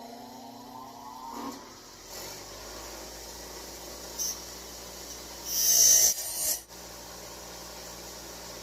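A small power tool spins up with a rising whine, then cuts into a metal part in a loud, high-pitched grinding burst about five and a half seconds in that lasts about a second. The cut trims back the part where the motorized bicycle's chain was rubbing.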